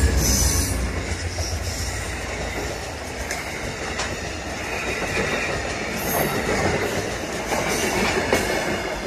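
Amtrak passenger train passing at speed close by: a steady rush of wheels on rail, with a strong low rumble from the locomotive at the start and a few sharp clacks from the wheels. The sound swells again as the rear unit passes near the end, then begins to fade.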